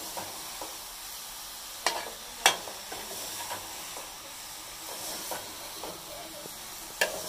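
Chopped ridge gourd sizzling in oil in an aluminium pot while a spoon stirs it, scraping through the vegetables, with sharp knocks of the spoon against the pot about two seconds in, a louder one just after, and another near the end.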